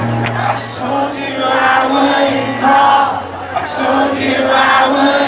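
Live concert music: a male voice singing over held low notes, with crowd voices mixed in.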